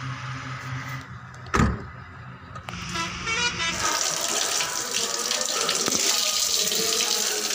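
Tap water running and splashing onto hands and a face being washed, starting about halfway in. Before it, steady background music and a single loud thump about a second and a half in.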